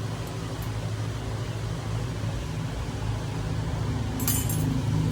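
Vehicle engine idling with a steady low hum, and a short metallic clink about four seconds in.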